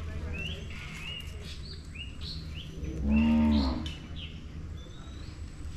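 A cow moos once, a short call a little under a second long about three seconds in. Birds chirp repeatedly in the background.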